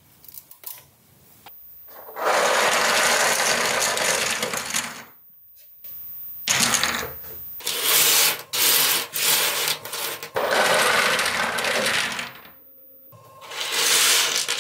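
Heaps of small 3D-printed plastic parts pushed and shuffled by hand across a cutting mat, clattering and scraping in several long stretches, with a few light clicks in the first second or so.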